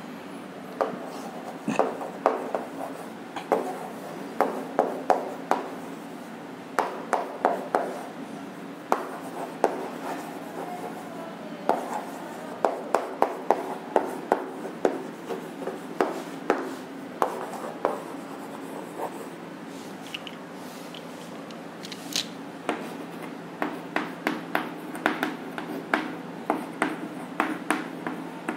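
Chalk writing on a blackboard: quick runs of sharp taps and short scrapes as letters are formed, with brief pauses between words, over a faint steady low hum.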